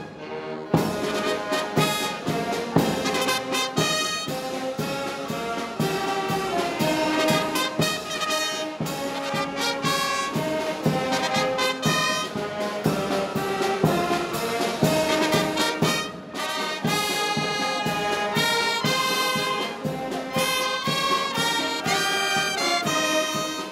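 Wind band playing: clarinets, saxophones, trumpets and other brass in a lively tune with regularly accented notes, and a short break in the phrase about two-thirds of the way through.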